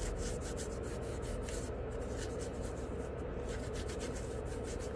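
A cotton pad soaked in nail polish remover rubbing over a Glock pistol's polymer grip in quick, irregular wiping strokes, scrubbing off oil residue. A low, steady hum runs underneath.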